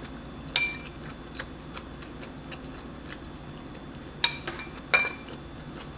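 A metal fork clinking against a ceramic bowl: a sharp ringing clink about half a second in and two more near the end, under a second apart, with faint small ticks between.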